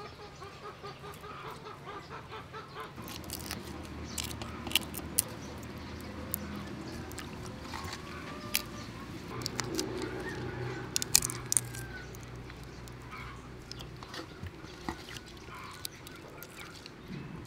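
Raw whole shrimp being handled and peeled in a metal bowl of water: scattered sharp clicks of shell and small splashes. Birds call in the background.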